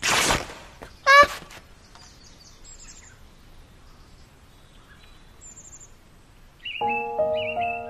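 A cloth whoosh as a robe sweeps past, then a short, loud pitched sound effect about a second in. After that, faint birdsong ambience with high chirps, and soft music with held notes starting near the end.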